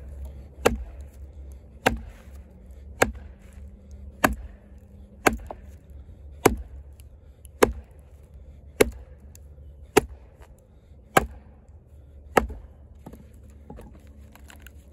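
A wooden baton knocking the head of a Kobalt 14-inch camp axe, its bit set into a log, to drive it through for splitting. Eleven sharp, even knocks come about one every 1.2 seconds.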